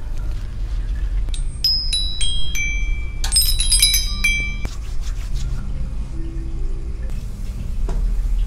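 A rack of small hanging metal bells struck one after another with bright, ringing notes. A run of single strikes is followed by a quick flurry of several bells together, from about a second and a half in until nearly five seconds.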